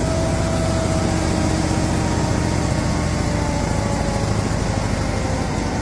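An engine running steadily, with a faint whine that slowly drops in pitch.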